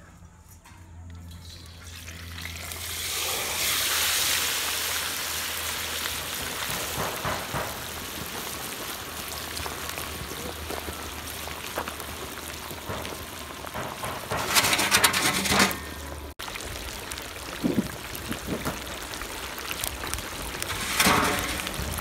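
Whole turkey deep-frying in a large steel pot of hot oil: the oil starts sizzling as the bird goes in, swells to a loud hiss within a few seconds, then keeps up a steady bubbling sizzle. Two brief louder bursts come about two-thirds of the way in and near the end.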